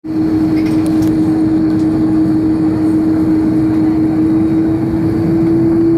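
Airbus A330 cabin noise during taxi: the jet engines run steadily at low thrust, a rumble carrying one steady droning tone that creeps slightly higher in pitch.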